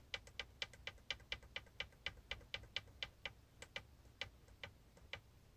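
Quick, faint clicks of the ProtoThrottle's Menu push button being pressed over and over to step through its function-configuration screens, about four a second, then slower and further apart until they stop about five seconds in.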